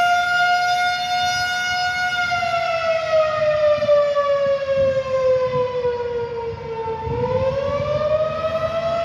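Tornado warning siren wailing during a test: its tone holds high, slowly falls in pitch for about five seconds, then climbs back up near the end.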